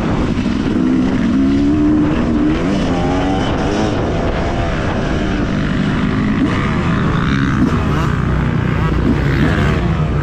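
Yamaha motocross bike's engine running hard and revving up and down as it is ridden along the track, heard from a camera mounted on the bike.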